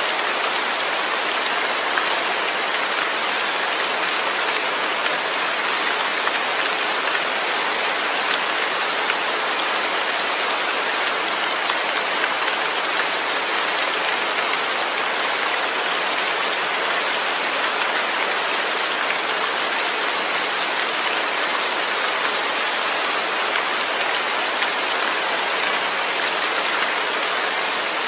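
Steady rain falling and pattering on a surface, an even hiss with no thunder.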